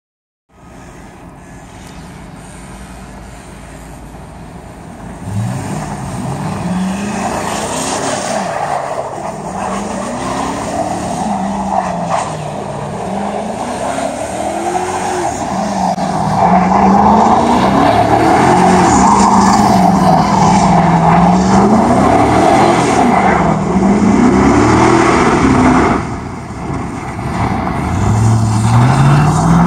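Chevrolet Silverado 4x4 pickup's engine revving up and down over and over as the truck spins donuts on snow, with the rush of its spinning tyres churning snow. It runs low and steady for the first few seconds, then the revs rise and fall every two to three seconds, dropping briefly near the end before climbing again.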